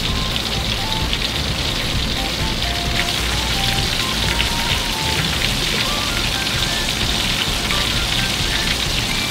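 Chicken karaage deep-frying in hot oil in a wok: a steady sizzle with fine crackling, the final crisping stage as surface moisture boils off. Background music with a simple melody plays over it.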